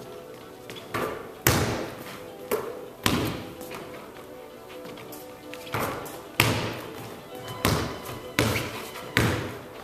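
Basketball bouncing on a hardwood gym floor, each bounce echoing: the shot strikes the hoop about a second in and bounces a few times, then a run of steady dribbles in the second half. Background music plays underneath.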